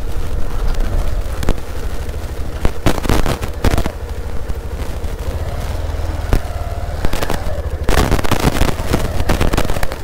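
Motorcycle riding over a rough, broken track: a steady low rumble with irregular sharp knocks and clatters as the bike jolts over bumps, thickest around three seconds in and again near the end.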